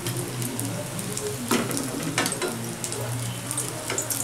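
Oil sizzling and crackling in a kadai as battered jackfruit-and-potato chops deep-fry, with a couple of sharper clicks about halfway through.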